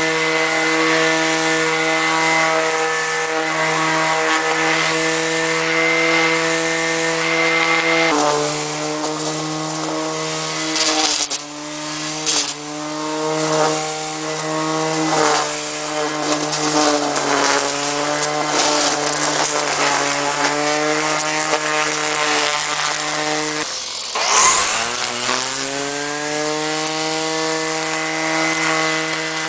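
Black & Decker 8209-04 corded electric string trimmer with a 4.3 amp motor running with a steady whine. Its pitch drops and wavers about eight seconds in as it cuts grass, with a few short knocks. Near the end the motor cuts out for a moment and spins back up with a rising whine.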